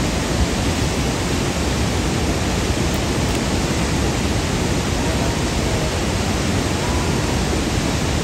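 Loud, steady roar of the waterfalls at Iguazú Falls: an even rush of falling water.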